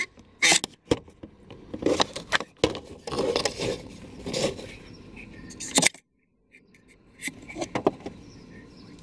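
A large plastic multi-pin wiring connector being handled: a run of sharp plastic clicks, knocks and scrapes against the trim and wiring harness.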